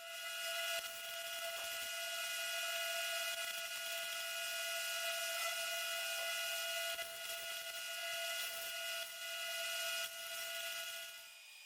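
Angle grinder with a cutoff wheel cutting through a steel hoop: a steady high whine over a hiss, which stops shortly before the end.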